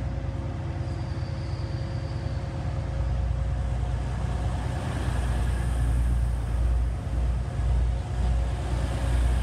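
TransPennine Express diesel multiple unit pulling out of the platform, its engine and wheels rumbling, louder from about three seconds in as the carriages pass close by.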